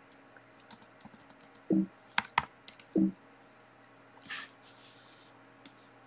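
Computer keyboard keys clicking in irregular runs as a command is typed, with two short murmured vocal sounds between keystrokes about two and three seconds in.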